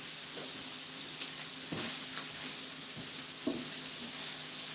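Sliced steak and bell peppers sizzling steadily on a Blackstone electric griddle, with a few light knocks of a utensil turning the food.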